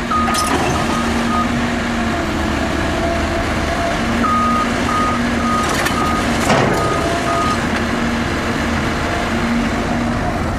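Caterpillar tracked excavator's diesel engine running while its travel alarm beeps in short runs as the machine tracks along. There is a single knock about six and a half seconds in.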